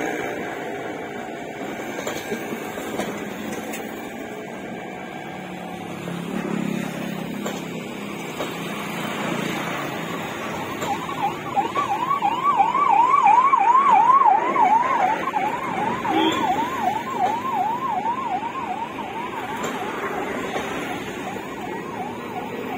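Passenger train coaches rolling past on the track, a steady rumbling noise. About halfway through, a siren sounding a fast rising-and-falling yelp, about three sweeps a second, comes in over the train; it is loudest soon after it starts and fades toward the end.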